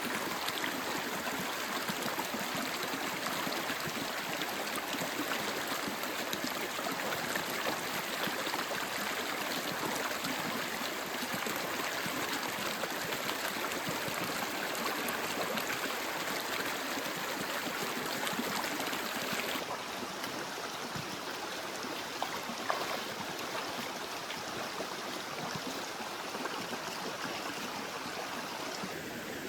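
Mountain stream running, a steady rush of water; about twenty seconds in it cuts to a slightly quieter, duller stretch of the same flowing water.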